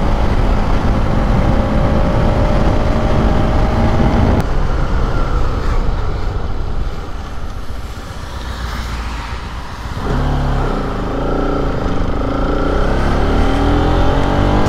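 Bajaj Pulsar RS200's single-cylinder engine running on the move. It gives way abruptly about four seconds in to a quieter stretch. About ten seconds in it comes back, rising in pitch as the bike accelerates.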